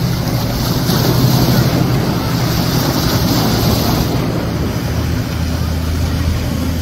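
Outboard motors of a center-console boat running at speed through choppy inlet water: a steady low engine drone that shifts lower partway through, over the rush of wake and waves, with wind buffeting the microphone.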